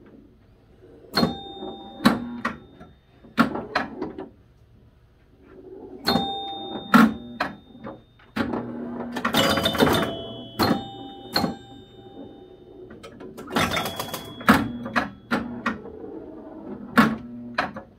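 1973 Gottlieb Big Indian electromechanical pinball machine in play: sharp mechanical clacks from its flippers and solenoids, several followed by chimes ringing. Twice there are bursts of rapid clicking from the relays and score reels.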